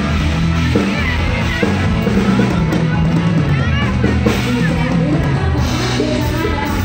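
Live band music played through a stage PA: drum kit beat and bass line, with a woman singing into a microphone over it.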